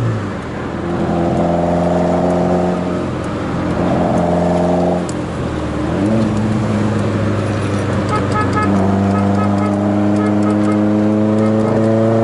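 1980 Volkswagen Scirocco Mk1 GT's four-cylinder engine heard from inside the cabin under track driving. Revs hold steady, drop about five seconds in, then climb slowly and steadily as the car accelerates.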